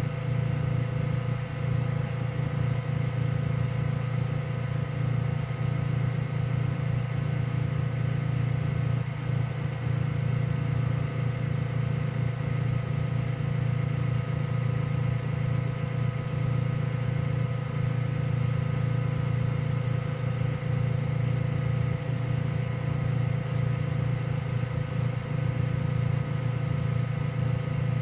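Diode laser cutter running during a slow cutting pass on ABS plastic: a steady machine hum with several constant whining tones from its fans and motors.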